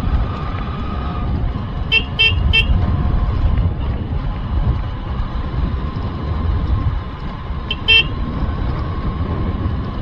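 Motorbike riding noise, a steady low rumble of engine and wind on the microphone, with a vehicle horn tooting three short times in quick succession about two seconds in and briefly twice more later.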